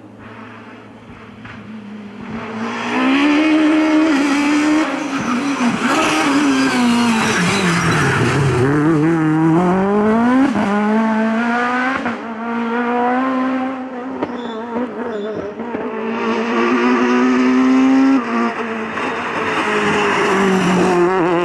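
Rally cars driven hard one after another on a tarmac stage. The first engine comes in about two seconds in and revs high, drops sharply through downshifts into a tight corner and climbs again as the car accelerates away. Further cars follow with the same high revving.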